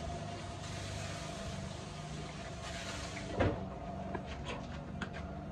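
Steady low outdoor rumble with a faint constant hum, broken by a single sharp knock about three and a half seconds in and a few light clicks after it.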